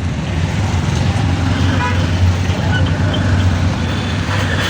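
Road vehicle engine running with a steady low rumble, with indistinct voices underneath.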